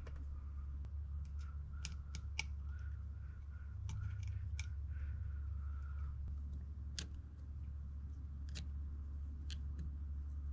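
Scattered small sharp clicks and taps of carburetor parts being handled and fitted during a rebuild, over a steady low hum.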